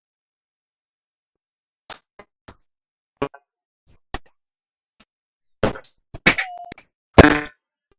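Sharp, short glitchy bursts and clicks coming through a Viber call, about eight of them at irregular intervals with dead digital silence between, one trailing a brief falling tone and the loudest near the end. The uploader takes these for an unexplained third party on the line, where his friends put them down to interference.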